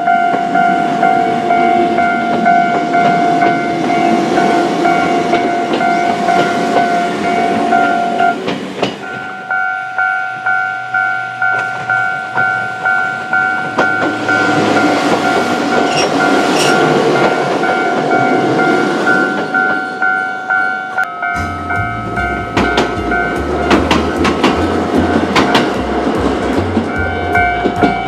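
Japanese level-crossing warning bell clanging in a steady repeating ring, about two strokes a second, while a Choshi Electric Railway train rolls past with wheels clattering. A low rumble joins in the last several seconds.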